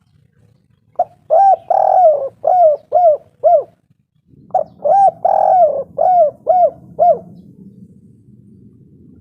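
Spotted dove cooing: two phrases, each a short note, a longer drawn-out coo and then about four quicker coos, the first beginning about a second in and the second about four and a half seconds in.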